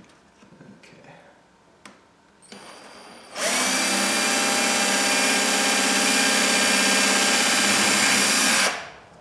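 Cordless drill running steadily while drilling a hole through a clear acrylic sheet. It starts softly about two and a half seconds in, comes up to full speed just after, runs for about five seconds and stops shortly before the end.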